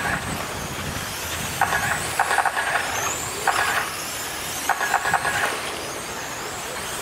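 Radio-controlled late model cars racing on a dirt oval. High-pitched motor whine rises and falls as they pass, with short bursts of louder whine every second or so as cars go by close.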